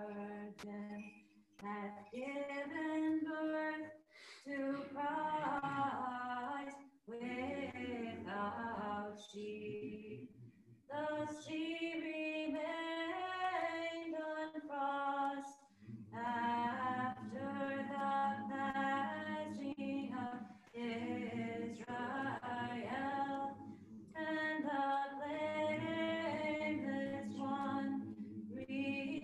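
Unaccompanied Orthodox liturgical chant sung by several voices, in phrases with short breaks between them.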